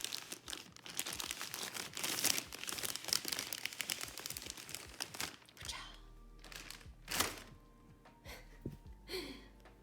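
Keyboard packaging crinkling and rustling as it is handled and pulled open, dense for about five seconds, then quieter rustles with a few sharp clicks.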